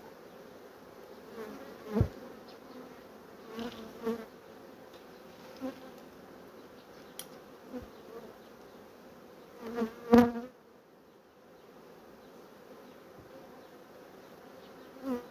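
Honeybees buzzing around an open hive, with a few knocks and rustles from handling, the loudest about two seconds and ten seconds in.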